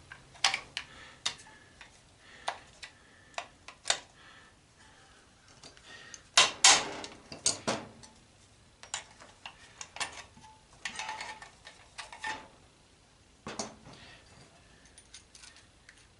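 Metal parts of an antenna rotator being pried apart with a hand tool: scattered sharp clinks and clicks, with a louder cluster about six to eight seconds in and a stretch of scraping around eleven seconds.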